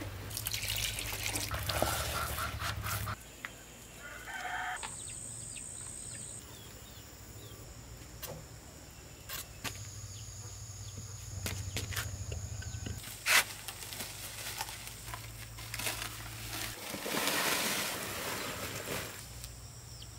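Dry cement mix poured from a metal bucket into a plastic basin with a rushing scrape, then scattered handling noises and one sharp knock about two-thirds of the way through. Chickens cluck and call at times, and near the end there is the crumbly rustle of soil broken up by hand.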